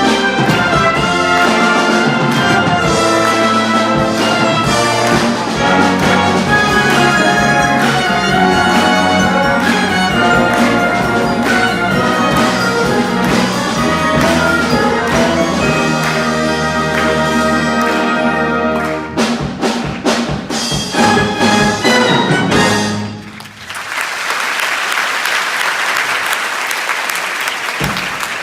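High-school wind band playing full ensemble with prominent trumpets and trombones, closing with a run of sharp accented chords. The music stops a little over twenty seconds in, and audience applause follows to the end.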